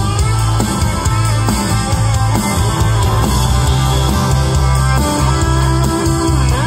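A live country rock band playing loudly on electric guitars, bass guitar and drum kit.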